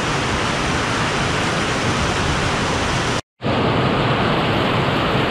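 Heavy rain pouring down, a steady loud hiss. It drops out for a moment about three seconds in, then continues.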